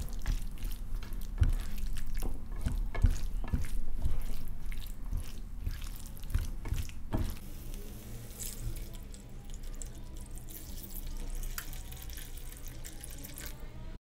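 Spatula stirring chickpeas and spinach in a stainless steel pan, with irregular scraping and knocking against the metal. About seven seconds in, this gives way to a quieter steady wash of chicken broth being poured into the pan.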